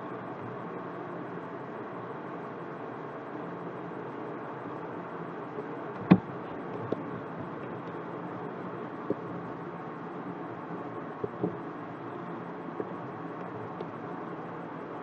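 Steady hum and hiss of background noise, broken by a handful of short sharp clicks, the loudest about six seconds in.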